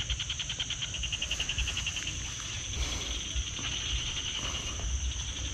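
Chorus of insects in tropical undergrowth: a steady high-pitched buzz, with a rapid pulsing trill over it during the first couple of seconds that then fades.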